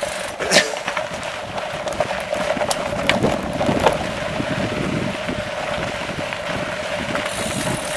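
Mountain bike rolling fast down a rocky dirt singletrack: wind rushing over the microphone and tyres running on dirt, with a steady hum underneath and scattered sharp clicks and knocks from stones and the bike's rattle.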